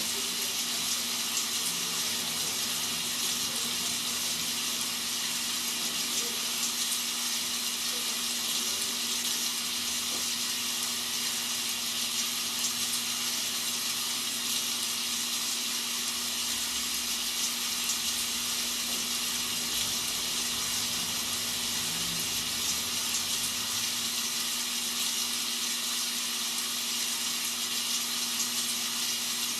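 Rain sound effect played as white noise: a steady, even hiss of falling rain, with a low steady hum underneath.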